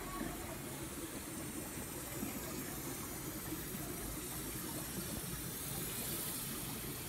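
Steady running and trickling water from the aquarium filters, with a constant hiss.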